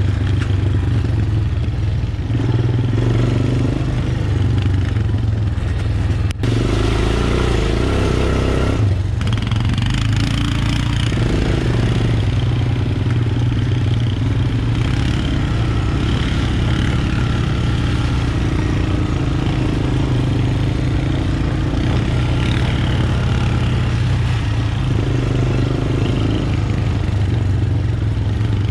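Engine of a 2014 Honda FourTrax Recon utility ATV, a single-cylinder four-stroke, running steadily as the quad rides along.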